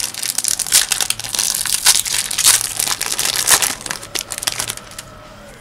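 Foil Yu-Gi-Oh Invasion of Chaos booster pack wrapper crinkling and tearing as it is ripped open and the cards are pulled out. The crackling stops about a second before the end.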